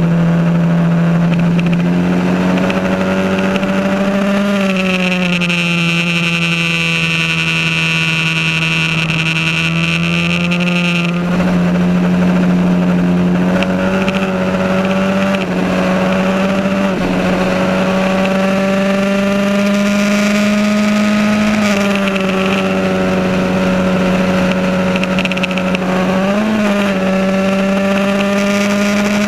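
Onboard sound of a 1982 Van Diemen Formula Ford's 1600 cc Ford Kent four-cylinder racing at high revs. Its note dips and climbs through the corners, with a few quick pitch steps at gear changes. A steady high whine sounds from about five to eleven seconds in and then cuts off suddenly.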